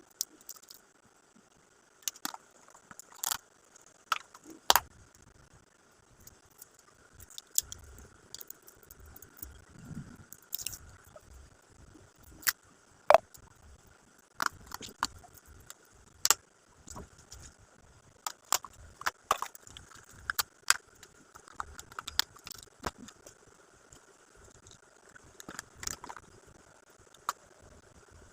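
Irregular clicks, taps and light rattling of gift items and their packaging being handled and unpacked by hand, with a few louder knocks among them.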